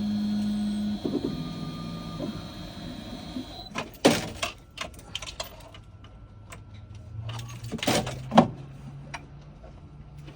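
A small motor running in short spells, with clicks and a few sharp knocks.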